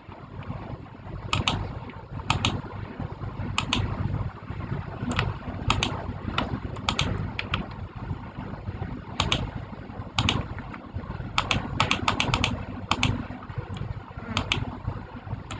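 Keyboard keys pressed one at a time at an irregular pace, with a quick run of presses about two-thirds of the way through, over a steady low rumble.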